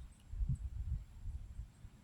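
Wind buffeting the microphone: an uneven, gusty low rumble with a slightly stronger bump about half a second in.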